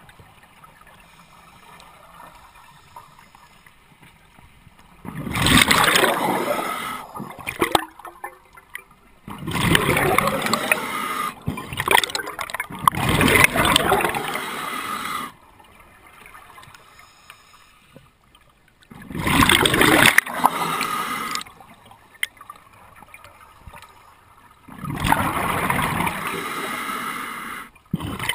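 Scuba diver breathing through a regulator underwater: five loud bursts of exhaled bubbles gurgling past the microphone, about two seconds each and every four to six seconds, with quieter stretches between breaths.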